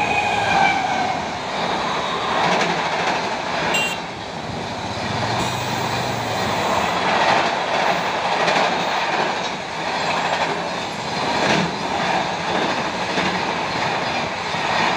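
Rajdhani Express coaches running fast over a small railway underpass bridge: a loud, steady rumble with irregular clattering of wheels over the track and bridge. A short falling tone sounds at the very start.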